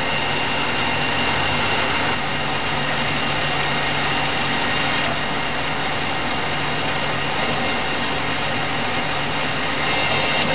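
Colchester centre lathe running steadily: a constant motor and gearbox hum as the spindle turns the work between centres. Near the end a higher hiss joins as the tool starts taking the rough cut.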